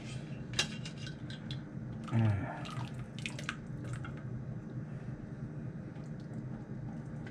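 Broth dripping and splashing back into a slow cooker as a wire skimmer lifts cooked meat out, with scattered light clicks of the metal skimmer against the pot. There is a steady low hum underneath and a brief louder sound about two seconds in.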